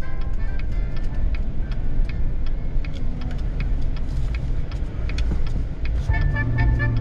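Low road and engine rumble of a moving truck heard from inside the cabin, with music playing quietly over it. The music grows louder near the end.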